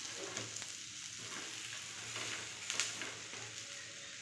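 Bread sandwiches sizzling steadily on a hot tawa (flat griddle), with a metal spatula scraping and clicking against the pan, most sharply a little under three seconds in.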